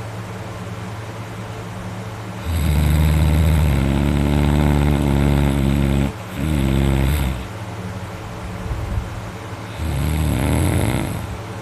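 Man snoring loudly in his sleep, with engine-like rattling inhales: a long snore about two and a half seconds in that lasts nearly four seconds, a short one right after it, and another near the end. A steady low hum runs underneath.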